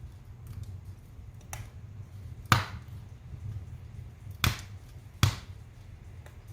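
Wood fire burning in a fireplace: a low steady rumble of flames with scattered crackles, and three sharp loud pops in the second half.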